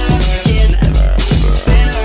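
Electronic dance music with a steady kick-drum beat, about two beats a second, under a dense synth mix.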